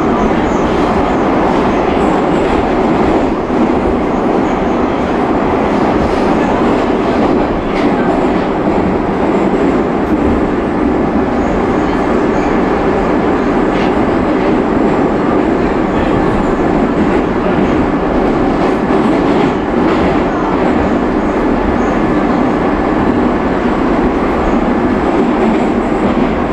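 Moscow Metro train running through the tunnel between stations, heard from inside the passenger car: a loud, steady rumble of wheels and running gear on the rails, with a few faint clicks.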